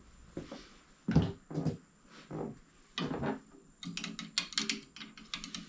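Tools being handled while a bicycle brake tool is fetched and put on: several separate knocks, then a quick run of clicks and rattles near the end.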